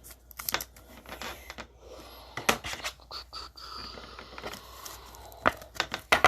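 Trading cards and plastic sleeves or card holders being handled: irregular clicks and short scrapes, the loudest two near the end.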